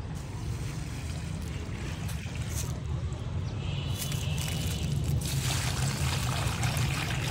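Water poured from a steel pot onto dry soil at the foot of a plant, trickling and splashing, growing louder about four seconds in, over a steady low rumble.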